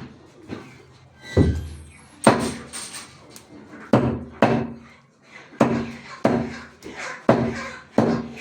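A cleaver chopping through chicken on a chopping block: about ten heavy, irregularly spaced strikes, each with a short ringing thud.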